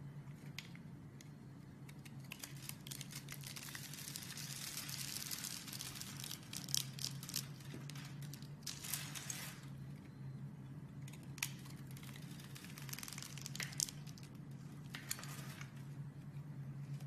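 Slime being handled: crinkly, crackling stretches of noise that come and go, with a few sharp clicks or pops, over a steady low hum.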